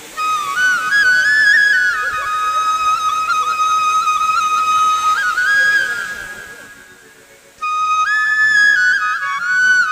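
Background music: a flute melody in two phrases. The first fades out past the middle, and the second comes in about three-quarters of the way through.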